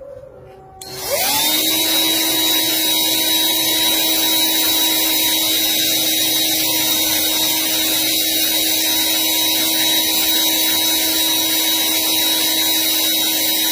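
A small electric motor spins up about a second in, its whine rising quickly, then runs at a steady speed with a high whine and a loud rushing noise.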